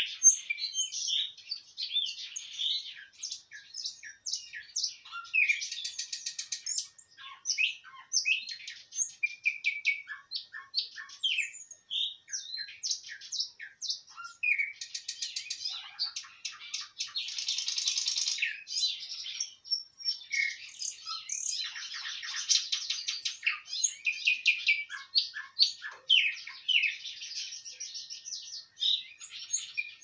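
Nightingale singing continuously: a fast, varied song of rapid clicking rattles and trills, short clear whistles and chirps, one phrase running straight into the next.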